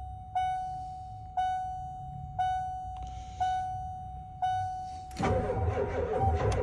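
A dashboard warning chime dings five times, about once a second, with the key on. About five seconds in, the 7.3 L IDI V8 diesel of a 1992 Ford truck cranks and starts from cold, and the chime stops.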